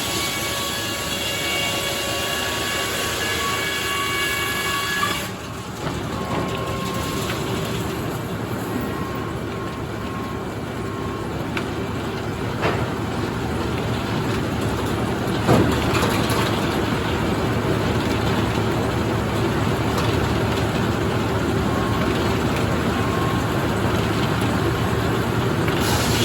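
Circular sawmill running with a steady machine noise and a whining tone. The sound dips and changes about five seconds in, and there are a few sharp knocks later on.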